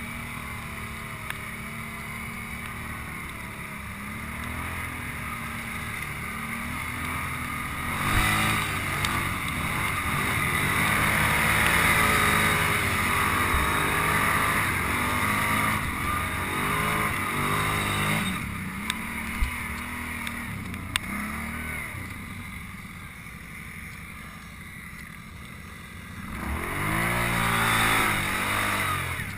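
ATV engine running and revving, its pitch rising about eight seconds in and held under load for several seconds, easing off, then revving up again near the end. A couple of short sharp knocks come about two-thirds of the way through.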